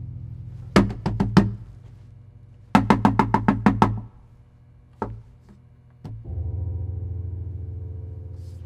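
Knuckles knocking hard on a wooden door: four quick knocks, then a longer run of about eight, then two single knocks. A low droning music tone sounds underneath and swells up again after the last knock.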